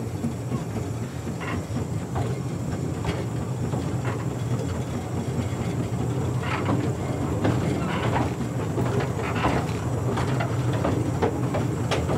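Narrow-gauge steam locomotive 'Tom Rolt' moving slowly along yard track: a steady low rumble with scattered clicks and knocks from the wheels running over rail joints.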